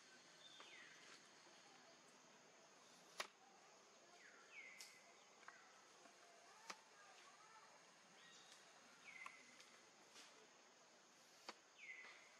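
Faint outdoor ambience: a steady high insect drone, with a high call repeated four times, each sliding down and then holding its pitch, and three sharp clicks.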